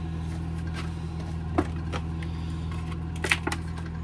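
Stiff clear plastic packaging being cut open with a utility knife: a few sharp crackles and clicks, one about a second and a half in and a cluster a little after three seconds, over a steady low hum.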